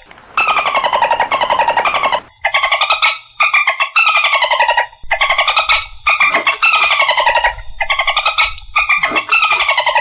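Dolphin burst-pulse chatter: about nine rapid buzzing trains of clicks, each half a second to two seconds long and sliding down in pitch, separated by short gaps.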